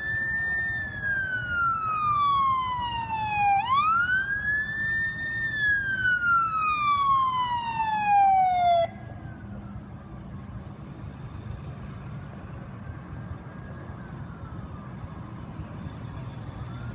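Fire engine siren wailing, its pitch falling slowly, rising quickly once and falling again, then cutting off suddenly about halfway through. A steady low engine and road rumble carries on after it, with a fainter siren wail in the background.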